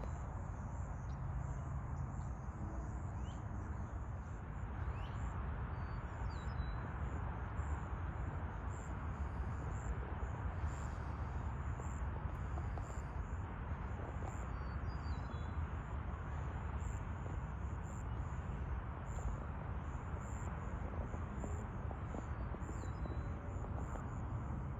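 An insect calling in short, evenly spaced high pulses over a steady low rumble, with a few brief bird chirps.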